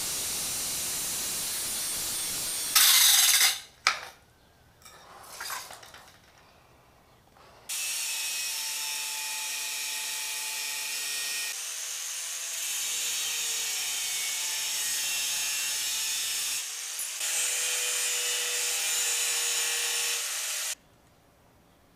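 Angle grinder grinding the steel frame tubing of a motorcycle: steady grinding, a brief louder burst, a few seconds of near pause, then a long stretch of grinding with a steady motor whine that cuts off abruptly shortly before the end.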